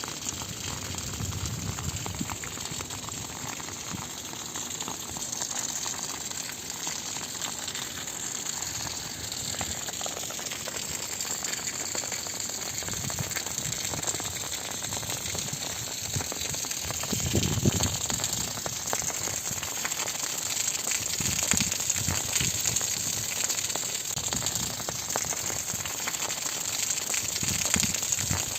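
Heavy rain falling: a steady, dense patter of drops, with a few low rumbles now and then, the strongest about two-thirds of the way through.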